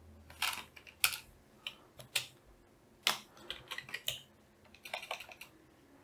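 Typing on a computer keyboard: irregular single keystrokes and short runs of clicks with pauses between them.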